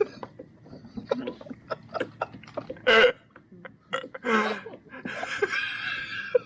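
Men laughing and breathing out hard, with scattered small clicks and knocks in between.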